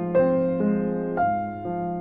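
Background music: a keyboard melody of steady piano-like notes, a new note about every half second.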